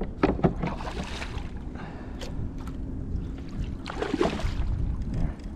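A hooked redfish thrashing and splashing at the water's surface beside a kayak. There are bursts of splashing just after the start and again about four seconds in, over a steady low rumble.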